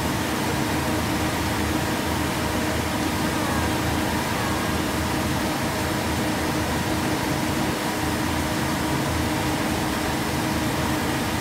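Outrigger boat's engine running steadily while under way, a constant hum over the rush of water along the hull.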